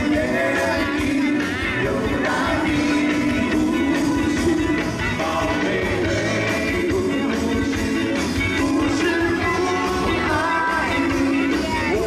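Live rock band playing a song with a lead singer, steady drum beat and full band accompaniment.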